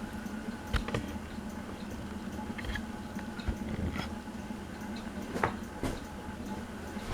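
Harbor Breeze Palm Breeze ceiling fan running with a steady motor hum, with a few sharp clicks scattered through it.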